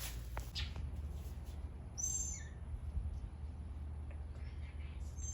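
Small bird chirping: two short, high chirps, one about two seconds in and one near the end, over a faint low rumble.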